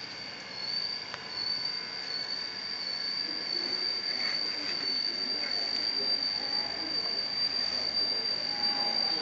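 A steady, high-pitched insect trill that goes on unbroken, with faint soft rustling beneath it.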